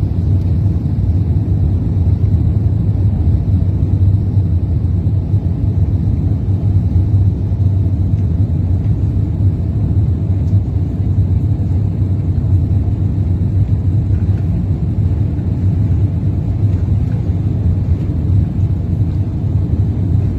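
Airbus A380 airliner heard from the passenger cabin: a steady, loud, deep rumble of engines and airframe.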